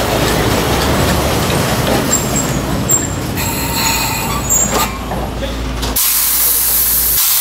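Botchan train's diesel-powered replica steam locomotive moving slowly at low speed: a low engine and rail rumble with a few brief high squeals. About six seconds in, a sudden loud, steady hiss takes over.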